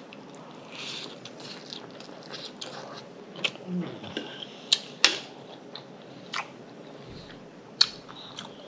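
Close-miked eating mouth sounds: chewing with a handful of sharp, wet lip-smacking clicks at irregular intervals.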